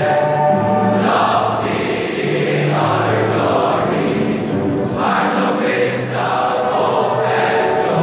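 A choir of many voices singing a slow song in long held notes.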